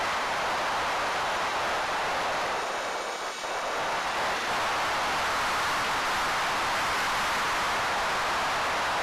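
Steady rush of wind noise from the airflow over a ZOHD Drift FPV plane in flight, heard through its onboard camera's microphone, dipping briefly about three seconds in.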